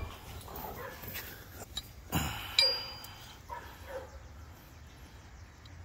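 Knocks and clinks of a steel corkscrew dog tie-out stake with a swivel top being handled; about two and a half seconds in, a sharp metallic hit rings briefly.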